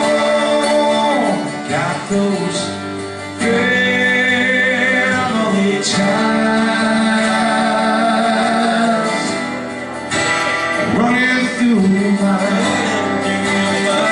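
Live country-folk music: two acoustic guitars played with a harmonica carrying the melody in long held, bending notes.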